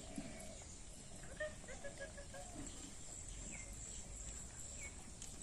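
Faint rural outdoor ambience: a steady high-pitched hiss, with a quick run of short chirping calls about a second and a half in and two brief gliding calls later on.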